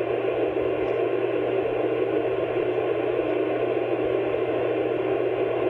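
Steady hiss with a low, even hum beneath it and no other events: the background noise of the recording during a pause in the narration.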